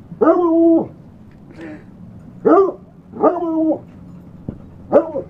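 A dog barking: four loud, drawn-out barks, the first and third lasting up to most of a second, with a faint shorter one between the first two.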